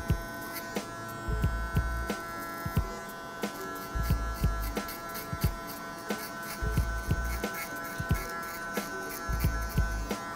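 Electric hair clipper with a guard comb running steadily as it cuts short hair at the side of the head, a constant motor hum. Background music with a steady beat plays under it.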